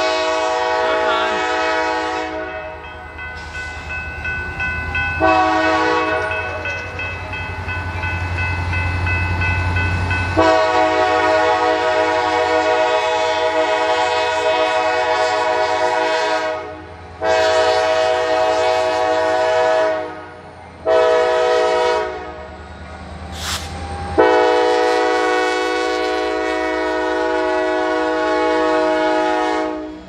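Norfolk Southern SD40E diesel locomotive's air horn blowing a series of blasts for a grade crossing, mostly long with a short one about three-quarters through, ending on a long blast. A steady low rumble from the approaching locomotive runs under the horn.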